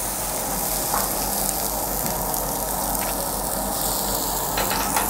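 Thick leaf squid sizzling on a WMF grill plate: a steady frying sizzle with a few faint crackles.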